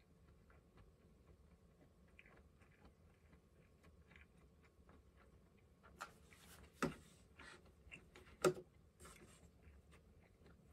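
Quiet eating: faint chewing and small chopstick clicks, then two sharp knocks about a second and a half apart as bowls are set down on and picked up from a wooden tray.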